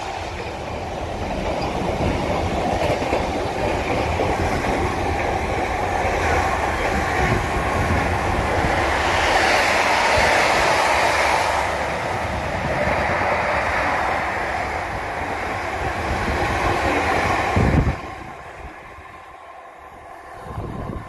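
Intermodal container freight train passing at speed: the wagons' wheels knock over the rails with a constant rumble and rattle. The noise ends with a loud knock about 18 seconds in as the last wagon goes by, then drops suddenly to a faint trailing sound.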